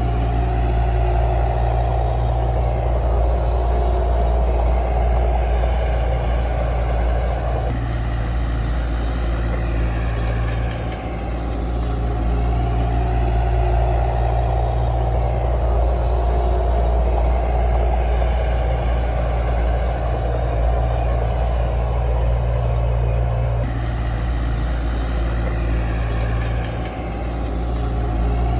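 Komatsu D31 bulldozer's diesel engine running steadily, its sound shifting in a repeating cycle of about sixteen seconds as it works.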